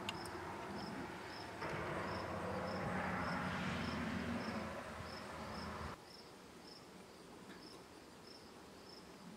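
Crickets chirping at an even pace, about two chirps a second, over a broad steady rushing noise that cuts off suddenly about six seconds in.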